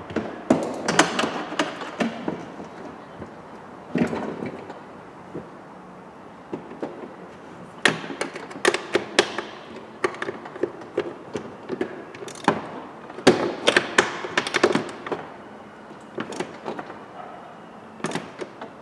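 Irregular clicks, knocks and rattles of parts and tools against the metal and plastic inside a car door, as hands work in the door cavity to fasten a side mirror. They come in short clusters with quieter gaps between.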